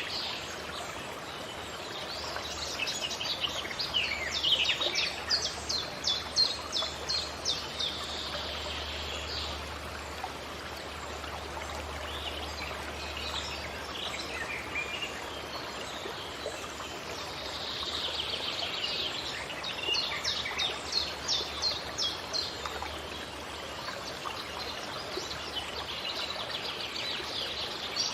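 Forest birdsong: a bird sings two long bouts of fast repeated high notes, one a few seconds in and one about two-thirds through, with softer calls between. A steady background hiss runs underneath.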